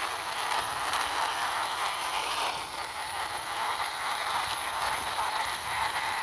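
Toy car's wheels rolling as it is pushed by hand across a surface, a steady rolling noise that swells and eases slightly.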